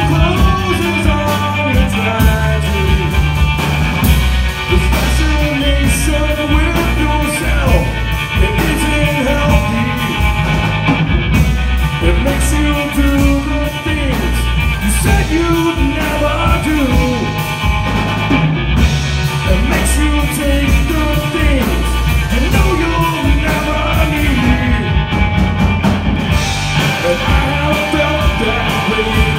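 Live rock band playing: electric guitar, electric bass and drum kit, with a man singing lead.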